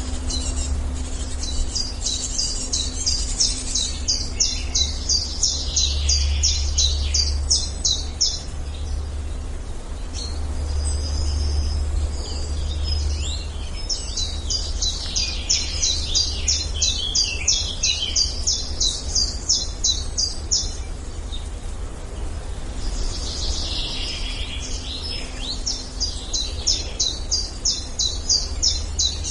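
Forest ambience with a bird singing: a rapid run of high, evenly repeated chirps, about five a second, in three long bouts, with other bird calls among them. A steady low rumble lies underneath.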